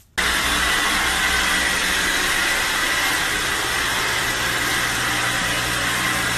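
A loud, steady machine noise with a low hum underneath, starting suddenly.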